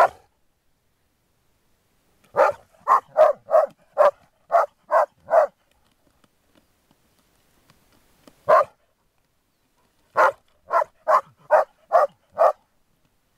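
Groenendael (Belgian Shepherd) barking in play at another dog that is guarding a toy. One bark opens, then a quick run of eight barks at about two a second, a lone bark, and a second run of six.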